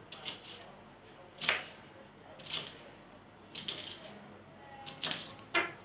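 Kitchen knife cutting celery on a plastic cutting board: about six separate cuts, roughly one a second, each a short sharp tap.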